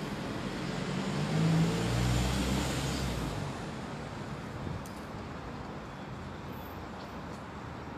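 A vehicle passing by: engine and road noise swell to a peak about two seconds in and fade away by about four seconds, over a steady outdoor background hiss.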